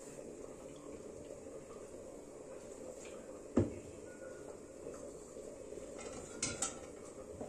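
Faint kitchen sounds at a gas stove: a steady low hiss, one sharp knock about three and a half seconds in as the oil bottle is set down, and a few light clicks near the end as a wooden spoon works in the pan.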